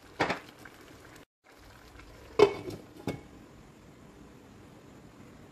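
Cookware clatter on a wok: a short rattle just after the start, then a glass pan lid set down on the wok with a loud clank a little past two seconds in and a lighter knock about half a second later, over a faint steady simmer.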